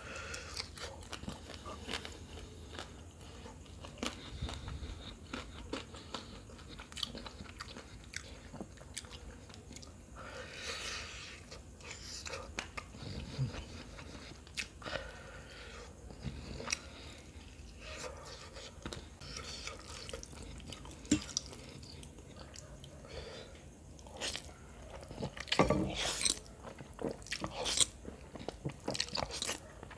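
Close-miked chewing and biting of devilled fish: soft wet mouth clicks and smacks. Near the end there are louder, denser mouth sounds as a forkful of noodles is eaten.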